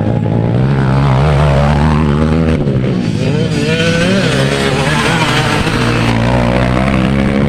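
Dirt bike engines revving as the bikes race past on a dirt track: a steady low engine drone under higher engine notes that rise and fall with the throttle.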